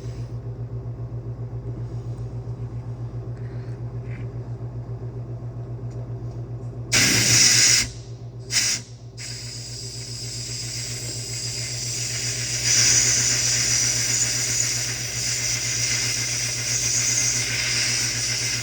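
Compressed air hissing from a sandblast cabinet's blast gun: two short bursts, then a long continuous blast that grows louder, over a steady pulsing motor hum, as carbon is blasted off spark plugs.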